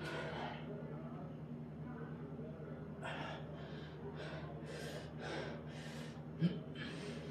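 Heavy, forceful breathing of a man doing barbell back squats: a run of about eight short, sharp exhales in the second half, over a steady low hum. A brief knock near the end.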